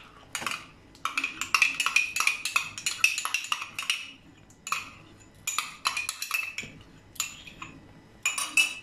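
A spoon clinking and scraping against a small cup as ghee is scooped out of it: a quick run of clinks for a few seconds, then scattered single taps.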